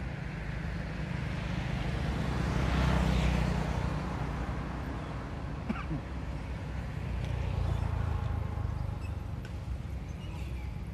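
Low, steady motor-vehicle engine rumble that swells twice, as if traffic is passing, with a couple of faint small clicks near the middle.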